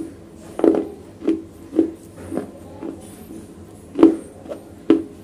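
Close-miked chewing of wet, broken black slate: soft wet crunches about twice a second, with two sharper, crisper crunches near the end.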